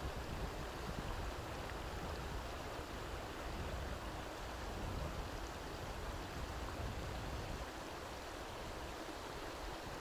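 Small waterfall and stream running over rocks into shallow pools: a steady rush of water, with an uneven low rumble beneath it.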